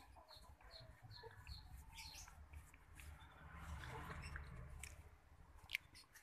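Faint, quick high-pitched chirps from nursing otter pups, about three a second through the first second or so and sparser after that. A single sharp click near the end is the loudest sound.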